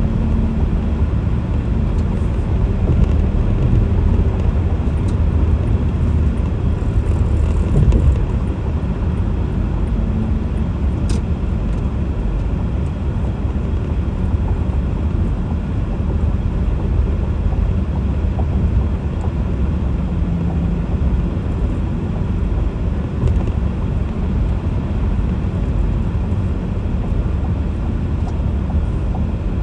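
Steady road and engine rumble inside a car cruising at highway speed.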